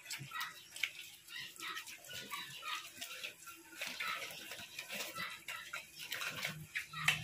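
Young Duroc × Large White crossbred pigs eating wet feed from a trough: a steady, irregular patter of wet slurps, smacks and chomps.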